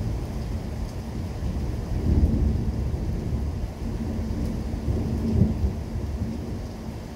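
Thunder from a severe thunderstorm rumbling low, swelling about two seconds in and again at about five and a half seconds, then dying away.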